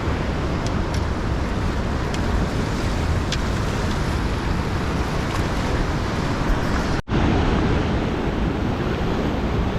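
Steady rushing noise of river water and wind on the microphone. It cuts out for an instant about seven seconds in and comes back duller.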